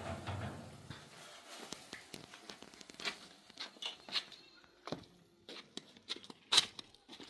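Food sizzling in a pan on a gas stove fades out in the first second. Then come scattered light clicks and taps of footsteps and a metal spoon knocking in the steel pan as it is carried, the loudest knock near the end.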